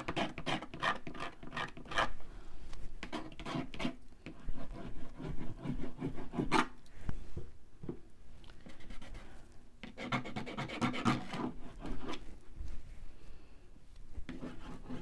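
Wooden skewer scratching and scraping across paint-covered paper in quick repeated strokes, with a lull in the middle before the strokes pick up again.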